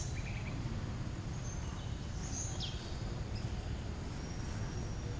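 Outdoor ambience: a steady low rumble with a few scattered high bird chirps and short whistles, one sliding quickly downward about two and a half seconds in.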